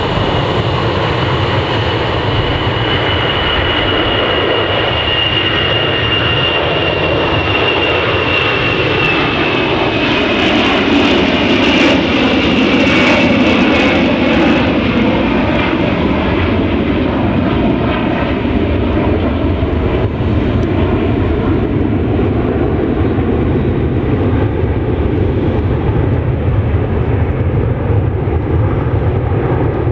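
Four Soloviev D-30KP turbofans of an Ilyushin Il-76MD at takeoff power as it lifts off and climbs past. A high whine slides slowly lower and grows to its loudest with a crackling rasp about ten to fifteen seconds in. It then dulls to a lower rumble as the aircraft climbs away.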